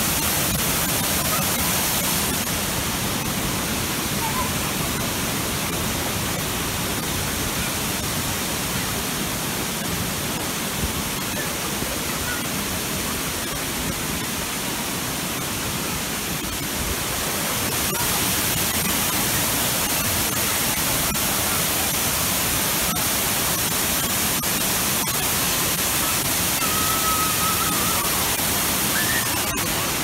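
Waterfall and shallow cascades rushing: a continuous, even wash of falling water, a little louder over the second half.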